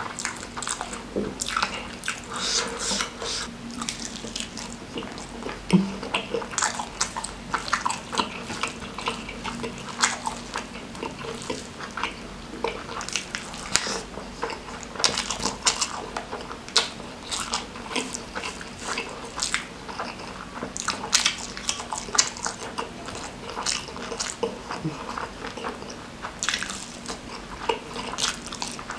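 A person chewing and smacking through hand-fed mouthfuls of rice, noodles and meat: a dense, irregular stream of short clicks and smacks.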